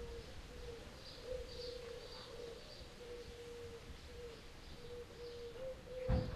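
Evening outdoor ambience: a low, steady hooting tone in broken stretches of about half a second to a second each, with faint high chirping of crickets above it. A single low thump comes near the end.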